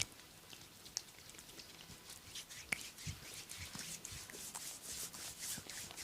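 Hands working on skin during a massage: soft rubbing and swishing friction with small sharp taps and clicks, the rubbing growing denser from about two seconds in, the loudest tap a little before the middle.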